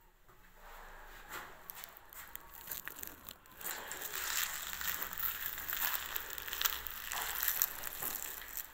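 Crackling, rustling noise full of small clicks, growing louder about three and a half seconds in.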